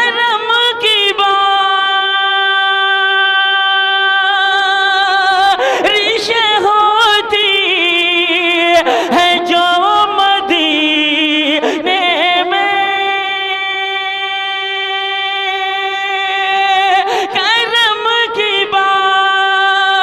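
A man's solo voice singing a naat unaccompanied. He holds long notes with vibrato, broken by quick ornamented runs in the middle and near the end.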